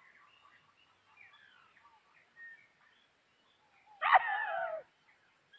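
A domestic cat meows once, loud and falling in pitch, about four seconds in, with small birds chirping faintly beforehand.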